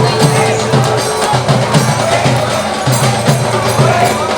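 Music with a steady, fast drum beat and clacking wood-block percussion.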